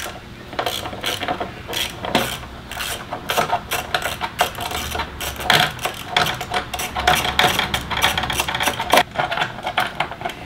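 Hand socket ratchet clicking in repeated runs as the bolts holding a motorcycle's plastic skid plate are backed out.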